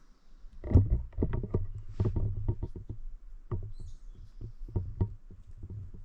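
Footsteps crunching and scuffing on a dry dirt trail, an irregular run of crunches and knocks starting about a second in, with a faint high bird chirp partway through.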